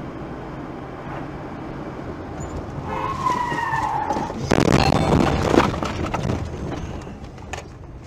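A car skidding out of control, heard from inside: about three seconds in its tyres squeal for about a second, then a loud rush of tyre and dirt noise as it slides off the road onto the dirt shoulder, easing off near the end.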